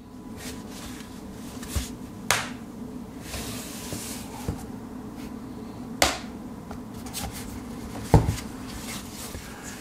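Plastic corner tabs of a snap-on iPad case clicking as an iPad Air is pressed down into it: a few sharp snaps a couple of seconds apart, with fainter handling taps between them.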